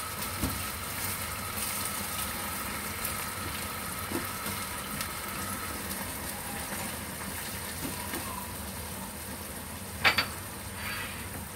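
Eggplant simmering in oyster-sauce liquid in a frying pan, a steady bubbling sizzle. A few light taps, and a sharp double clack of the spatula about ten seconds in.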